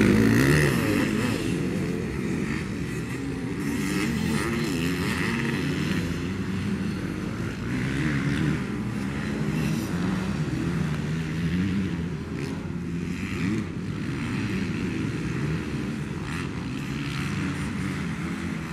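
Several motocross bikes' engines revving up and dropping back, again and again, as they ride the dirt track. They are loudest in the first second or so as two bikes pass close, then fainter and steadier as they ride off across the track.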